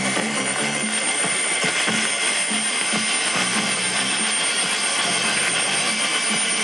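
Weak long-distance AM broadcast on 630 kHz (KUAM) from a Tivoli Audio Model One's own AM tuner and speaker. Faint programme audio sits under steady static, with beat whistles running through it: a high one and a lower one.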